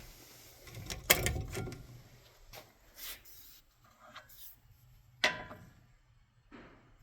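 A few separate knocks and clunks, as of something being handled around a machine: a heavy one with a dull thud about a second in, lighter ones after, and a sharp ringing knock a little past five seconds.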